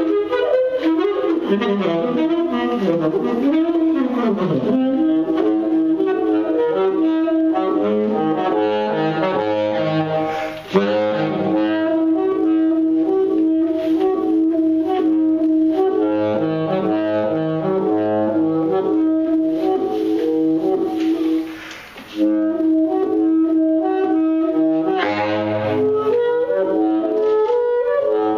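Saxophone improvisation, with several lines sounding at once over one long held note that breaks off briefly about twenty-two seconds in.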